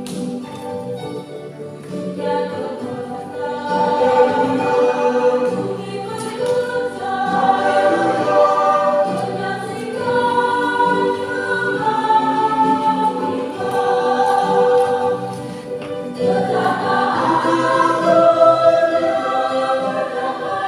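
Church choir singing a hymn in several voices with long held notes, growing louder about four seconds in.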